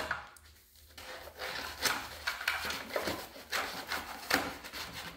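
Pool-noodle foam being pushed and wedged by hand into an RC boat hull around the battery: irregular rubbing and scraping of foam against the hull, with a few sharper knocks.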